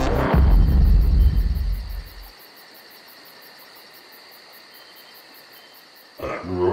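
A deep rumble that stops about two seconds in, then faint hiss. Near the end a cartoon zombie's growling, groaning gibberish voice starts.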